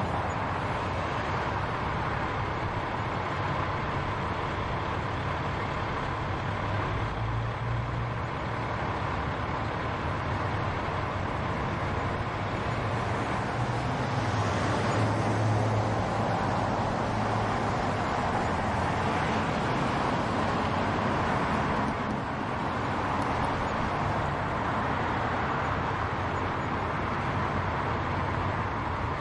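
Continuous road-traffic noise: a steady wash of tyre and engine sound from passing vehicles, with a low engine hum that swells twice, about a quarter of the way in and around the middle.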